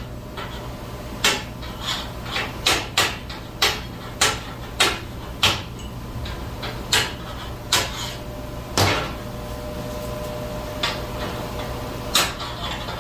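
Hammer blows on steel: about a dozen sharp knocks at an uneven pace, roughly one a second, over a steady low hum.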